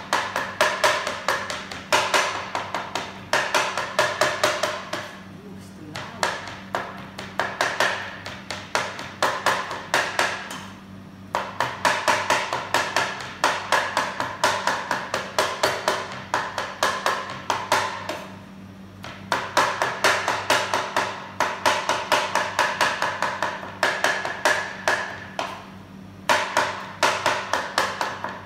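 Chef's knife rapidly chopping raw chicken breast on a wooden cutting board, mincing it fine: quick runs of knocks, about four or five a second, broken by short pauses every six or seven seconds.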